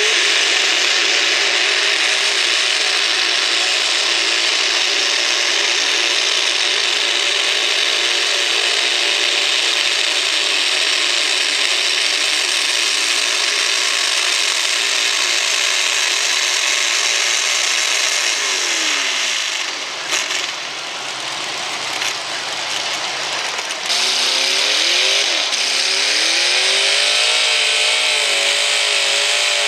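Two-wheel-drive pulling truck's engine, in a 1950s Chevrolet pickup, running flat out at high revs as it drags the pulling sled, then its pitch falling away as it comes off the throttle about two-thirds of the way through. After a short quieter spell, another pulling truck's engine revs up, rising and wavering in pitch.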